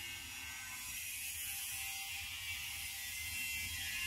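Steady hiss with a low hum underneath and no distinct events: background room tone.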